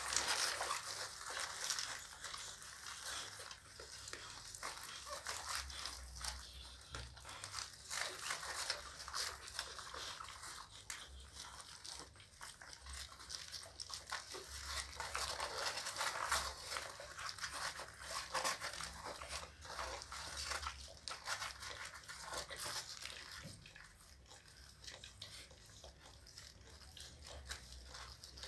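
Newborn pit bull puppies suckling at their mother's teats: an irregular patter of small wet smacking and clicking sounds.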